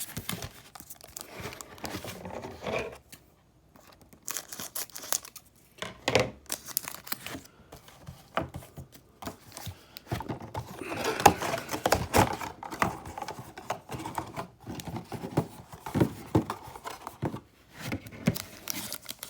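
Foil trading card pack wrappers from a Panini Contenders Draft Picks football blaster box crinkling and being torn open, with handling of the packs and cards, in irregular rustles that are busiest about halfway through.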